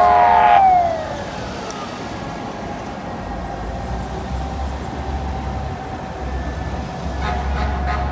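A fire apparatus air horn blast over a siren falling in pitch; the horn cuts off suddenly about half a second in. Then a fainter, steady siren tone with traffic noise and a low engine rumble.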